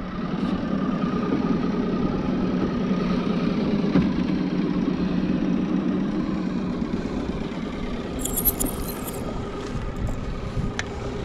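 Boat's outboard motor running steadily at low speed, with a brief burst of high clicking about eight seconds in.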